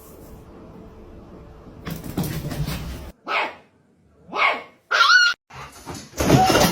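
A dog barking: several short barks about a second apart, the loudest one at the end.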